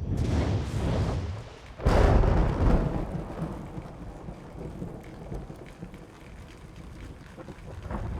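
Thunder sound effect: a rumble swells up, then a sharp, loud thunderclap with heavy bass about two seconds in, fading into a long low rumble under a steady rain-like hiss.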